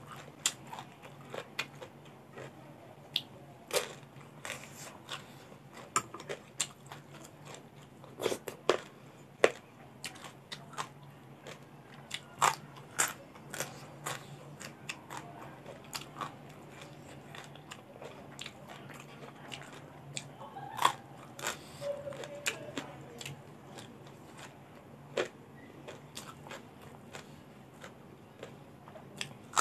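Close-miked crunching and chewing of raw long beans and other raw vegetables: sharp, crisp bites at irregular intervals, with wetter chewing between them.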